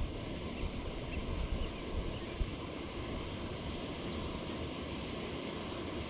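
Wind rumbling and buffeting on the microphone, with a few faint bird chirps about two seconds in.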